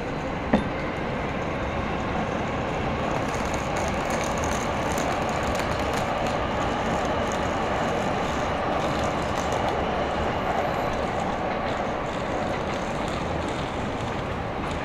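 Steady rumble of a passing train, swelling through the middle and easing toward the end, with one sharp click about half a second in.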